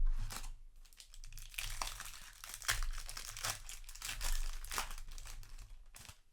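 Foil booster pack wrapper crinkling and crackling as it is handled, in a dense run of irregular crackles that starts sharply and stops just before the end.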